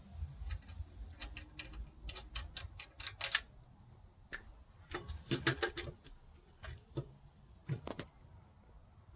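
Irregular light metallic clicks and clinks of hand tools and wheel hardware, with a denser run of clicks about five and a half seconds in.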